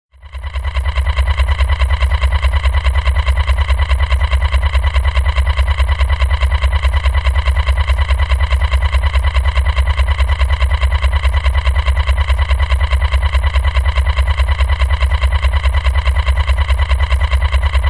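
Sci-fi machine sound effect: a steady electronic hum with a heavy low drone under a stack of higher tones, pulsing rapidly and evenly. It fades in over about the first second.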